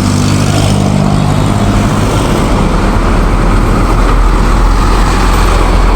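Road traffic: vehicle engines running, with a steady hum at first giving way to a louder, deeper rumble about halfway through.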